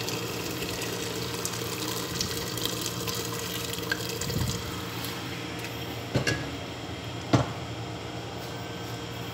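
Water pouring from a kettle into a stainless steel pot of beef stew: a steady splashing stream. Two sharp knocks about six and seven and a half seconds in.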